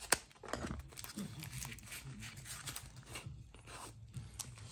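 Paper and plastic wrapping being pulled and torn off a knife blade by hand: irregular rustling and crinkling with scattered clicks, and one sharp click just after the start.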